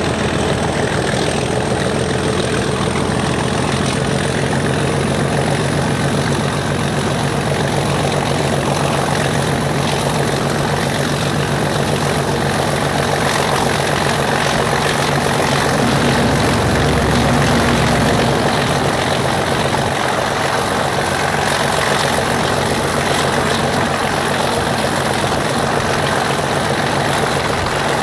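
Class 37 locomotive's English Electric V12 diesel working under power, heard from beside the cab with wind rushing past. A high turbocharger whistle rises slightly in the first few seconds and then holds steady. About halfway through, the engine note shifts and briefly grows louder.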